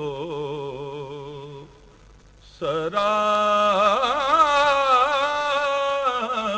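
A man singing an Urdu naat unaccompanied, holding long notes with a wavering ornamented melody. After a pause of about a second, he comes back in louder on a higher, sustained line.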